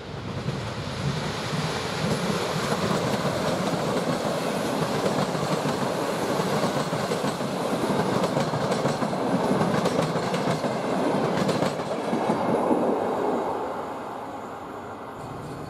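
Electric-locomotive-hauled passenger train passing close by: steady wheel noise of the locomotive and coaches on the track, which dies down about fourteen seconds in as the last coach goes by.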